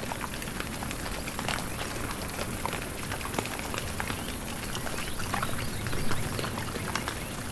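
Feral hogs feeding and rooting: a busy run of short, irregular crunching clicks over a steady hiss.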